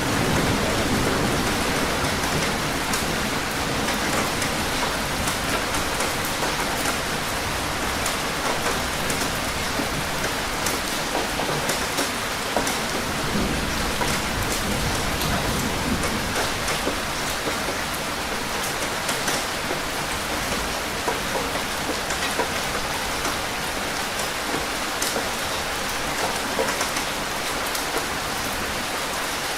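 Steady rain falling, an even hiss with many individual drops ticking sharply on a surface.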